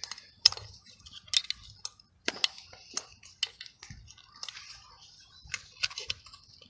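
Hand tap being turned to cut M8 threads in the aluminium engine case: irregular sharp clicks and pops as the tap bites and the chips break.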